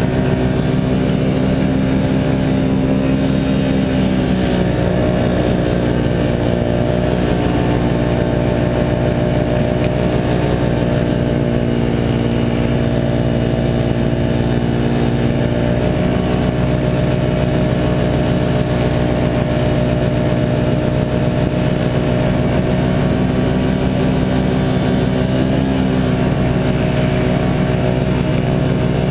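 Can-Am 1000 XT ATV's V-twin engine running steadily under load while the tracked machine rides through snow, its pitch dipping briefly about four seconds in and wavering again near the end.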